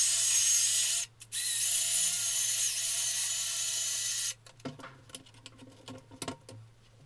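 Power drill whirring as it spins a rusty steel shaft inside a wrap of sandpaper, sanding the rust off. It runs for about a second, stops briefly, then runs about three seconds more with its pitch dipping twice under load. After it stops come a few light clicks and rubs as the shaft is handled.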